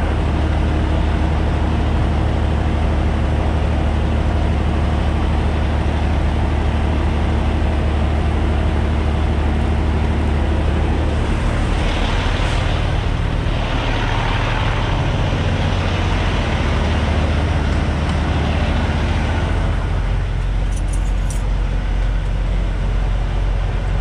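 Semi truck's diesel engine running steadily at a low, even idle. About halfway through, a rushing noise builds and fades over several seconds, and the engine note shifts a little.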